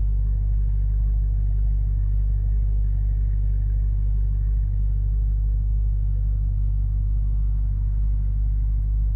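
Dodge Charger Scat Pack's 392 HEMI V8 running at a steady idle, heard from inside the cabin as the car rolls slowly in reverse. There is no clunk or clank from the freshly replaced rear axle shaft.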